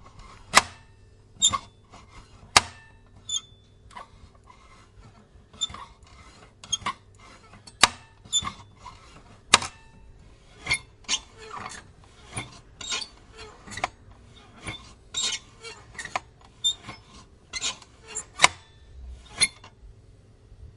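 Metal till note holder being flipped up and snapped back down on its spring hinge, over and over: irregular sharp metallic clacks, some with a brief high ring, with softer rubbing of the hinge between them.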